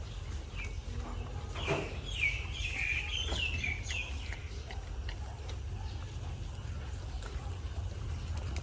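A run of high, squeaky animal calls lasting about two seconds, starting near two seconds in, over a steady low rumble and scattered faint clicks.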